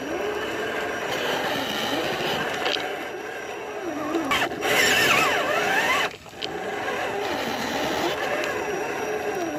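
1/10-scale RC crawler truck's electric motor and drivetrain whining, the pitch rising and falling as the throttle changes. It gets louder and higher about four to six seconds in, then cuts out briefly just after six seconds.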